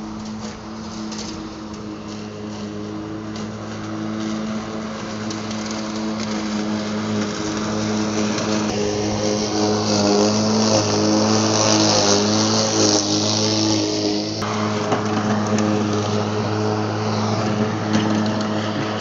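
80-volt cordless electric lawn mower running through long grass: a steady motor-and-blade hum with a hiss of cut grass, growing louder over the first half as the mower comes close.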